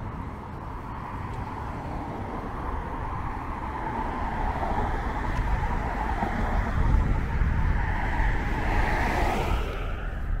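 Road traffic on a multi-lane street, with tyre and engine noise from a car passing close by. It builds to its loudest about two-thirds of the way through, then falls in pitch and fades near the end.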